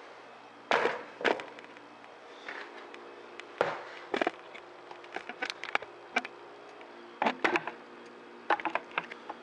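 Hands kneading crushed cake and frosting in a mixing bowl: irregular squishes, clicks and knocks of hands and bowl, over a faint steady hum.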